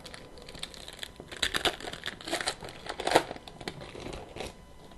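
Trading card pack wrapper crinkling as it is handled and torn open, irregular crackles from about a second in until near the end.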